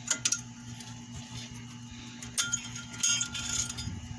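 Light metallic clicks and clinks of the steel brake-pad clips being pried out of a front caliper bracket. There are a few sharp ticks right at the start and another cluster past the middle.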